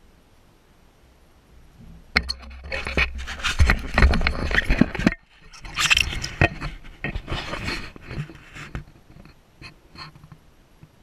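Close-up handling noise on a small action camera as it is swung around on its mount: rubbing, scraping and knocking right at the microphone. It starts about two seconds in with a low rumble, breaks off briefly about halfway, and dies away after about nine seconds to a few faint clicks.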